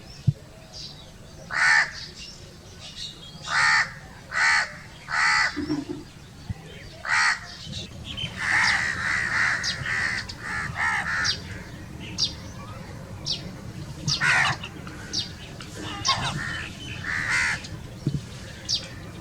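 A flock of crows cawing. At first there are single harsh caws about a second apart; from roughly halfway through, the calls of several birds overlap in a busier chorus.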